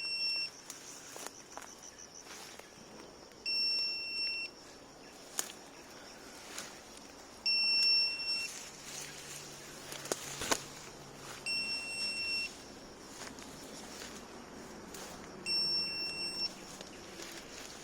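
FPV quadcopter's lost-model buzzer sounding to locate the crashed drone: a steady high beep about a second long, repeating every four seconds. Faint scattered clicks come between the beeps.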